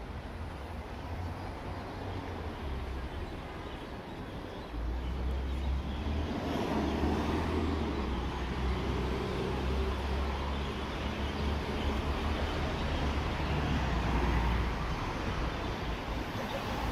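City street ambience: a steady wash of road traffic with a low engine rumble, which grows louder about five seconds in.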